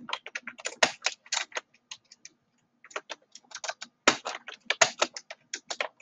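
Typing on a computer keyboard: rapid, irregular keystrokes in runs, with a brief lull around two to three seconds in.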